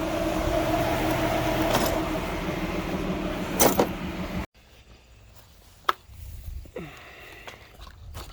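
A car engine running steadily, with a couple of clicks about three and a half seconds in. It cuts off abruptly about four and a half seconds in, leaving a much quieter stretch of scattered clicks and knocks.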